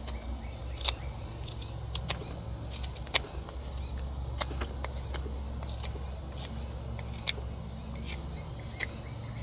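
Scandinavian-ground blade of a Gerber Principle bushcraft knife shaving curls off a wooden stick to make a feather stick, each stroke giving a short sharp click, about ten in all, over a steady low hum.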